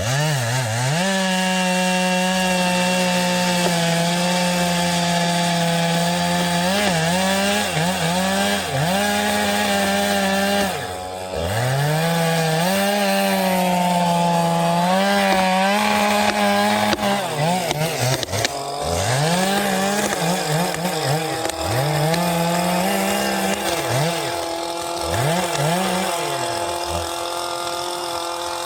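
Stihl chainsaw at full throttle cutting wood, its engine pitch repeatedly dipping and recovering as the chain loads up in the cut. The throttle eases briefly about eleven seconds in, and the saw winds down at the end.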